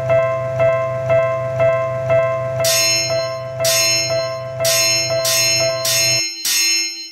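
Level-crossing warning bells ringing 'kan-kan': a pitched ding about twice a second over a low hum, joined about two and a half seconds in by a brighter, sharper bell striking roughly once a second. The first bell cuts off abruptly about six seconds in.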